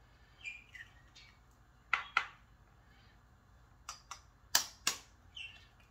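Eggs being cracked with a kitchen knife: sharp taps of the knife on the eggshell, a pair about two seconds in and four more between about four and five seconds in, with quieter crackles of the shell breaking.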